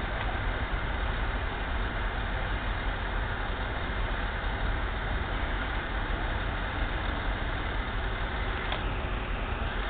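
Heavy farm machinery running steadily, a continuous engine rumble with mechanical noise over it and a brief tick near the end.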